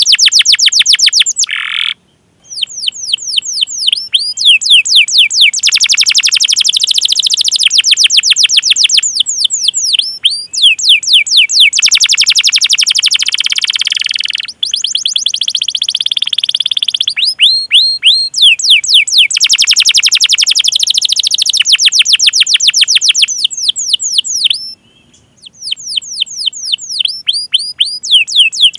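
Domestic canary singing long runs of rapid, repeated chirps that sweep down in pitch, many notes a second. The song breaks off briefly about two seconds in and again about twenty-five seconds in.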